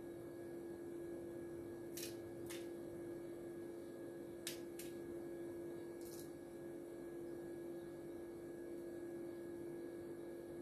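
A steady hum, with about five faint clicks spread over the first six seconds as a metal spoon sprinkles chili flakes over chicken in a foil-lined dish.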